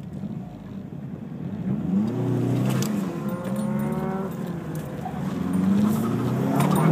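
Mazdaspeed3's turbocharged 2.3-litre four-cylinder heard from inside the cabin: it runs steadily, then about two seconds in it revs up hard as the car launches onto the autocross course, its pitch climbing, dipping with the throttle, and climbing again near the end.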